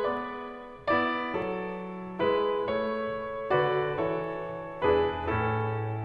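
Background piano music: slow chords struck about every second and a half, each left to ring and fade.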